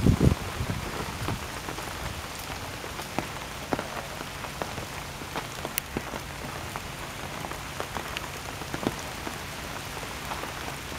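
Steady rain hissing, with scattered single drops tapping close by. A brief low rumble at the very start.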